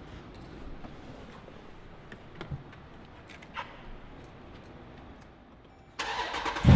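A few light clicks and ticks over quiet background. Then, about six seconds in, the starter cranks, and just before the end the 2014 Jeep Grand Cherokee SRT's 6.4-litre HEMI V8 fires up loudly through its newly installed aftermarket valved exhaust.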